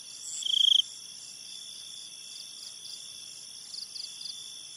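Crickets at night: a steady high insect hum with repeated chirping trills. The loudest is a short trill about half a second in, and softer chirp runs come later.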